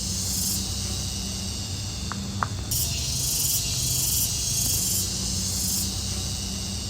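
Insects buzzing: a high, hissing drone that swells in waves of about a second each over a low rumble, with two short high chirps a little after two seconds in.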